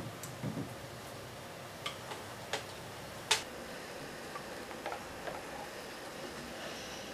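A few sharp clicks and light knocks from the HOAP humanoid robot's arm and the knife in its gripper as they are guided by hand, the loudest about three seconds in.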